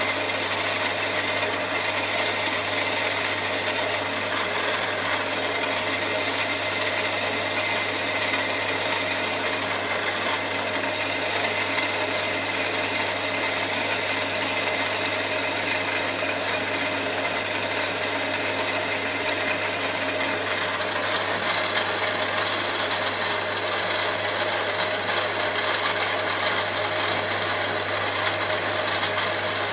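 Milling machine spindle running steadily with a small drill bit cutting cylinder-head bolt holes in a solid aluminium block: a constant motor hum with steady tones over a cutting noise. One lower tone drops away about two-thirds of the way through.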